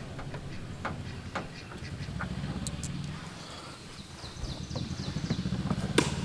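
Hand tools working on the Jeep's door hinge nuts: scattered sharp metal clicks and knocks as the nuts are loosened, over a steady low hum.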